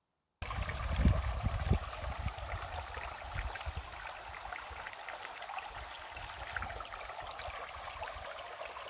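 Steady running water that starts abruptly about half a second in, with a few low thumps in the first two seconds.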